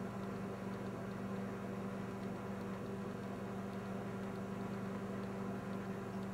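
Steady low electrical hum, several even tones over a background hiss, with no change throughout.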